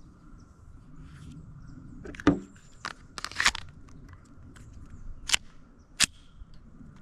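A handful of short, sharp clicks and knocks, the loudest about two seconds in, a cluster a little after three seconds, and two more near the end, over a faint steady hiss.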